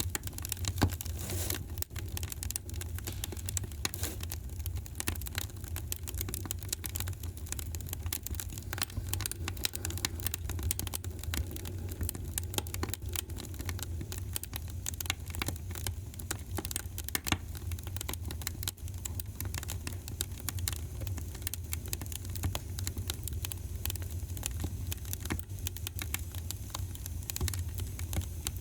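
Wood fire crackling in a fireplace: a dense run of small pops and snaps over a low steady rumble, with one sharper pop about a second in.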